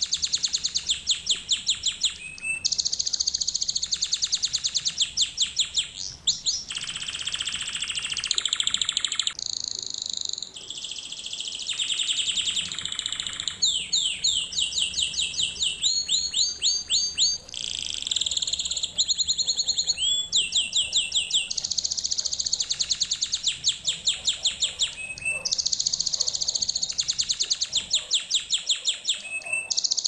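Canary singing a continuous song of fast trilled rolls, switching to a new phrase every second or two, with a few harsher buzzy stretches and quick sweeping notes among them.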